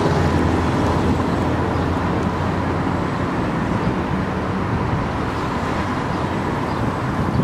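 Street traffic: a motor vehicle's engine rumbling, strongest in the first couple of seconds and then easing a little.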